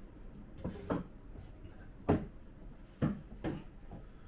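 Wooden boxes knocking against the wooden top of an old cabinet as they are set down and shifted: several dull knocks, the loudest about two seconds in.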